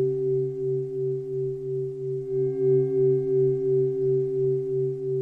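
Steady meditation drone of several held pure tones, singing-bowl-like, pulsing gently in loudness.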